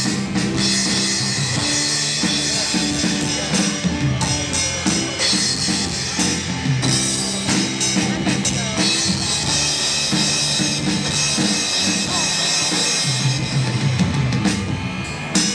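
Live rock band playing through the hall's amplification: a drum kit keeping a steady beat under electric and acoustic guitars and keyboard.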